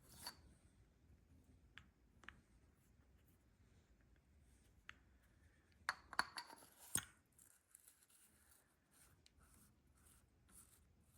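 Faint handling of small metal carburetor parts, mostly quiet, with a few light clicks and a short cluster of metallic clicks and knocks about six to seven seconds in, as a Mikuni carburetor's throttle slide is worked into the carb body and will not yet seat.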